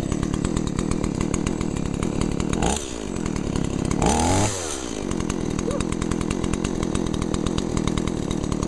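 Stihl 018C two-stroke chainsaw running just after a cold start, on full choke. It is revved twice, briefly about two and a half seconds in and harder about four seconds in, each time falling back to a steady idle.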